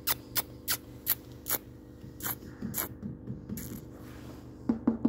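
A person making repeated kissing sounds with pursed lips to call a cat: sharp little smacks, about two to three a second, that pause about three seconds in and start again near the end.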